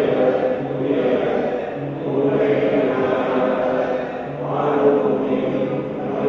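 Sung liturgical chant: a voice holding slow, drawn-out notes in short phrases with brief breaks between them.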